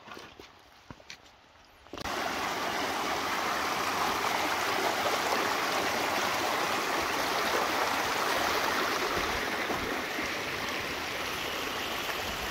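A few footsteps on loose stones and gravel. About two seconds in, a shallow mountain stream cuts in abruptly: a steady rush of water running over rocks.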